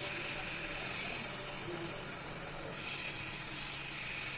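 Hot air rework station blowing a steady hiss of air through its nozzle, set to 340 °C with the airflow at 40, heating a phone board's metal shield to loosen it for lifting off.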